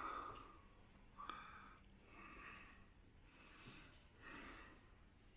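Near silence, with a few faint, soft noises about a second apart.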